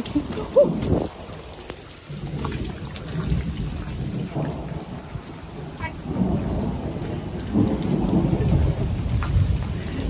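Heavy thunderstorm rain pouring steadily, with a low rumble that swells and grows louder from about six seconds in.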